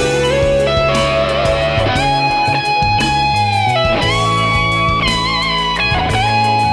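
Gibson ES-335 semi-hollow electric guitar played lead through a driven tone, an improvised solo of long sustained single notes, several bent and held with vibrato.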